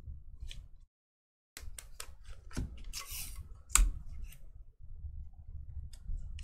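Trading cards and packs being handled: scattered light clicks and taps, a short papery rustle about three seconds in, and a sharper click just before four seconds.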